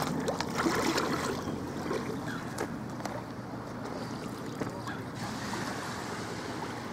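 Lake water sloshing and swirling as a man wades through the shallows.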